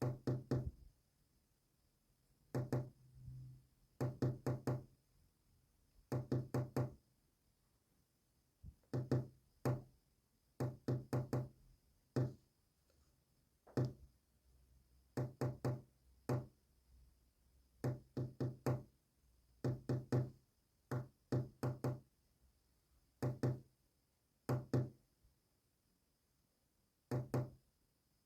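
Sharp knocks in quick clusters of one to five strokes, with a second or two between clusters: a message knocked out in Morse code.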